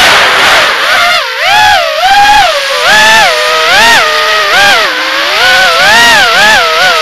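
Brushless motors and propellers of a RedPawz RP200 FPV racing quadcopter whining, the pitch rising and falling over and over as the throttle is worked.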